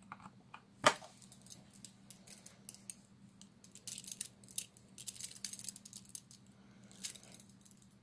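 TCH 822 steel chain-link handcuffs being handled: the chain and cuffs jingle and clink in irregular metal clicks. A single sharp knock about a second in is the loudest sound.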